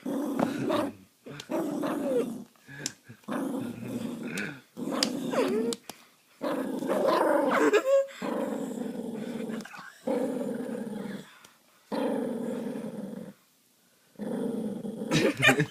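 A dog growling in a long string of drawn-out growls, about nine of them, each one to one and a half seconds long and broken by short pauses for breath.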